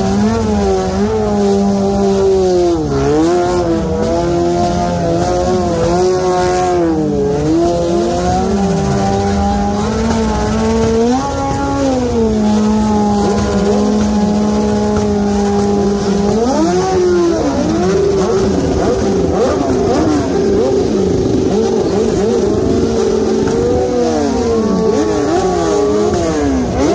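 Motorcycle engine revved hard during a burnout, held at high revs for long stretches and dropping and climbing again and again. In the second half other engines rev alongside it, their pitches rising and falling across one another.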